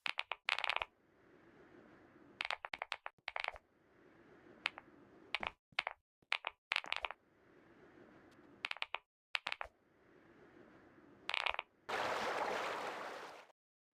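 Clusters of short, sharp clicks and taps, several in quick succession each time, with faint hiss between them and a longer rushing noise near the end.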